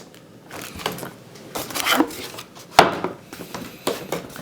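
Modular power-supply cables being handled and set down: a series of clicks and clatters from their plastic connectors, with one sharp knock nearly three seconds in.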